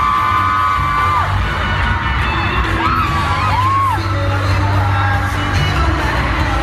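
Loud live pop-rock concert: a band playing with high sung vocal lines that hold and bend, over a heavy, steady bass.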